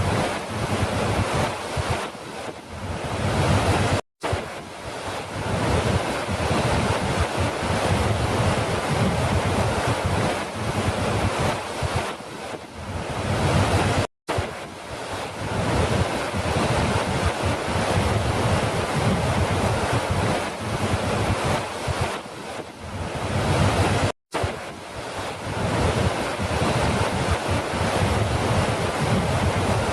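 Falling water rushing steadily, a continuous dense roar. It cuts out to silence for an instant three times, about ten seconds apart, where the recording loops.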